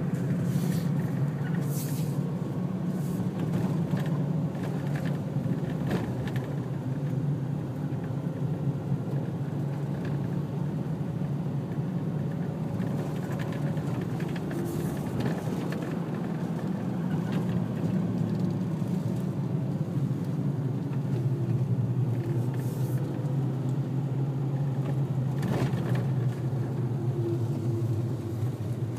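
Steady low rumble of a car driving on a paved road, heard from inside the cabin, with a few short knocks.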